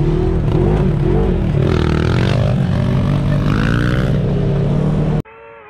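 Dirt bike engine revving and pulling away, its pitch climbing and falling twice as the throttle is opened and eased. It cuts off abruptly about five seconds in, giving way to a quieter steady hum.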